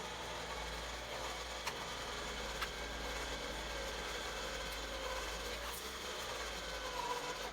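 Jeep Wrangler's winch motor running steadily under load as it pulls on the cable, with a couple of sharp clicks in the first few seconds.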